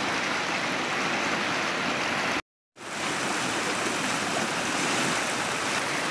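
Fast-flowing stream rushing, a steady noise of water. It cuts out to silence for a moment about two and a half seconds in.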